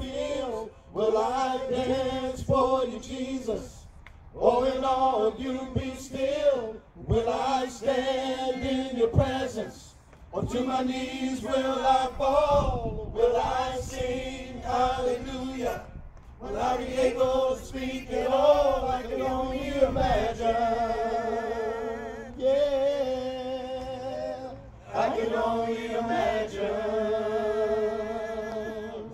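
Gospel singing in phrases of about two seconds with short pauses between them; in the last third the voice holds long notes with a wavering vibrato.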